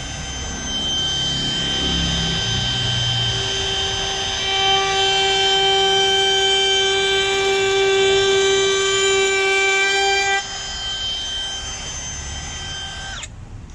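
DeWalt DCW600B 20V brushless cordless compact router running at full speed with a steady high whine. From about four seconds in, the bit cuts into a pine board and the sound grows louder with a lower tone added, easing back about ten seconds in as the bit lifts out. Near the end the motor stops abruptly as its electronic brake halts it.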